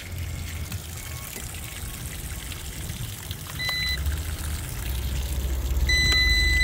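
A short, high electronic beep about three and a half seconds in, then a second, longer steady beep starting near the end, over a low rumble that grows louder.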